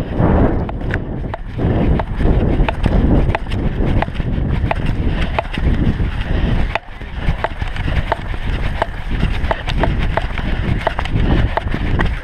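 Running footsteps of an orienteer, with the orienteering map crinkling and rubbing close to the microphone in many sharp little crackles over a heavy low rumble.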